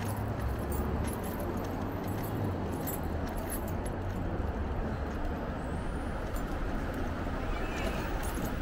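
Steady wind rumble on the microphone and street noise from riding an electric bike, with faint rattling clicks.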